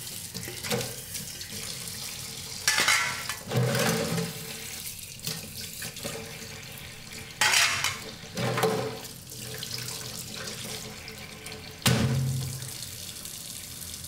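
Kitchen tap running into a sink while washing up, with five louder, sudden sounds of things being handled in the sink.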